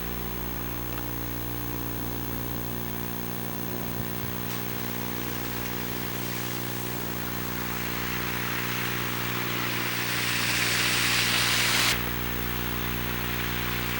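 Steady electrical buzz from the Hi8 camcorder's audio. Over it a rushing noise builds for several seconds and cuts off suddenly near the end.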